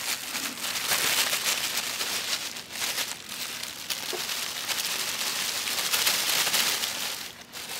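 Plastic bag crinkling and rustling as shredded polyethylene tarp scraps are shaken out of it into a tin can: a dense crackle of tiny clicks that eases off near the end.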